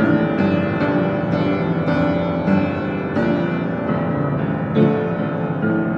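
Upright piano improvisation: single notes and chords struck about every half second, ringing into one another, recorded through a cell phone's microphone.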